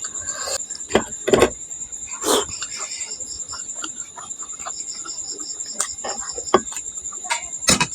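Crickets chirping in a steady, high, rapidly pulsing trill, with several short clicks and knocks over it; the loudest come about a second and a half in and just before the end.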